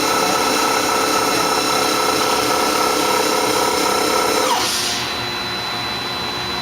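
Sub-spindle of a Tsugami BS-20BII CNC Swiss lathe running at 2,000 RPM with a steady whine, then winding down to a stop about four and a half seconds in, its pitch falling away. A steady machine hum is left behind.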